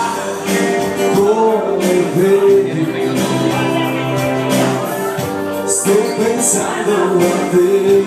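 Live electric band playing a song, with a sung lead vocal over the instruments and cymbals.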